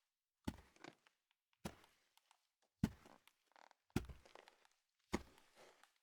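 Slow footsteps, five unhurried steps about 1.2 seconds apart. Each is a sharp heel strike followed by a short scuff.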